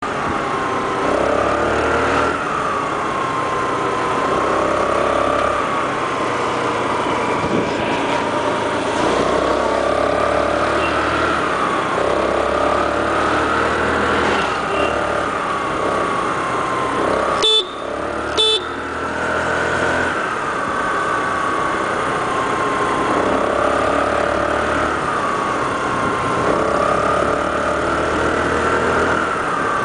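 Motor scooter running along the road, its engine pitch rising and falling every few seconds with the throttle. Two short horn beeps about a second apart midway through.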